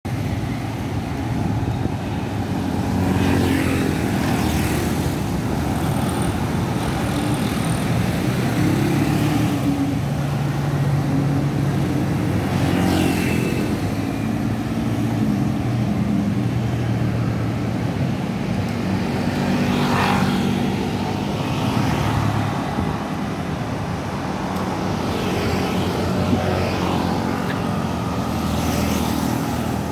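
City street traffic: motor scooters and cars driving past, a steady engine drone with several louder pass-bys.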